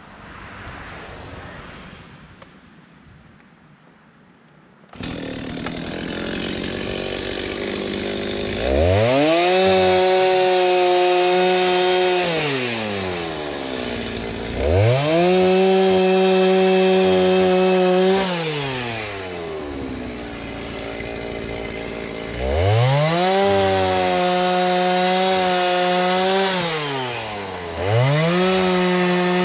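Chainsaw cutting dry oak firewood. It comes in suddenly about five seconds in, then is opened up to full throttle four times for about four seconds each, dropping back to idle between cuts.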